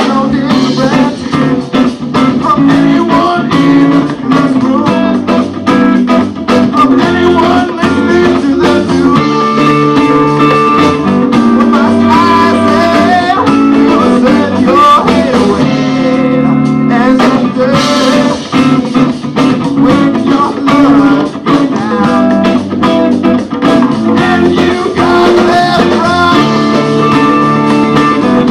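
Live band playing a funk song, with electric guitars over a drum kit and congas. A guitar line slides between notes about halfway through.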